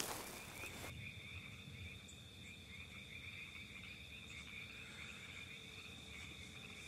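Faint, steady insect chorus, a continuous high trilling like crickets. A rustling hiss cuts off about a second in.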